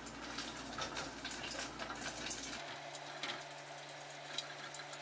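Battered mini hot dog frying in a small pot of hot oil: dense sizzling and crackling, with a faint steady low hum joining about halfway through.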